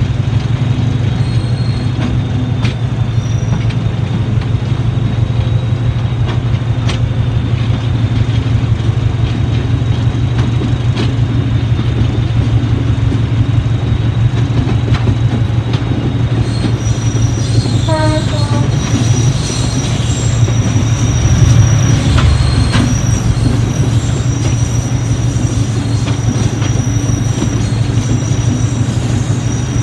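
Class 73 electro-diesel locomotive working hard uphill on its diesel engine: a steady low throb under the rumble of the wheels on the rails. Just past halfway, a high squeal of wheel flanges on the curve comes in and stays, with a brief string of falling squeaks.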